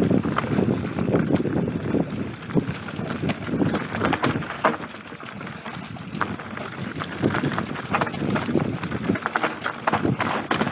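Mountain bike descending a rough dirt singletrack: tyres on dirt and stones, with the bike clattering over bumps in quick, irregular knocks, and wind on the microphone.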